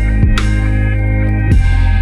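Background electronic music with a heavy sustained bass, sharp percussion hits and two falling bass sweeps.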